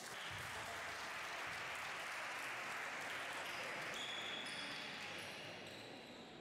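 Spectators clapping for a made free throw. The applause starts suddenly, holds for a few seconds, then fades out, with a few short high squeaks about four seconds in.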